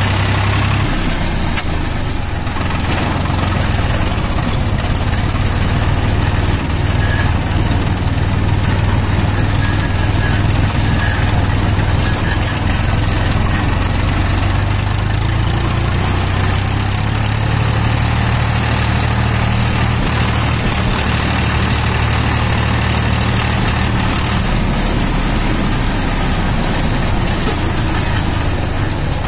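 Farm tractor engine running steadily as the tractor drives along, heard from the driver's seat, with small shifts in engine speed.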